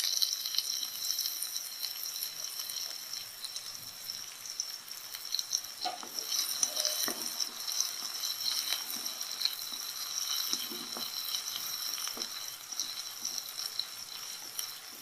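Onion and garlic sizzling in hot oil with mustard seeds and cumin, a tempering over medium heat, with occasional light scrapes and taps of stirring.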